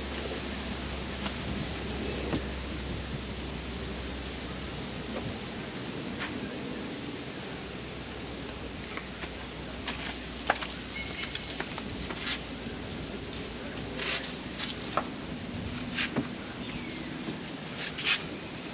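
Steady outdoor hiss with a low hum that stops about five seconds in. From about halfway through come scattered sharp clicks and taps from handling a silicone caulking gun.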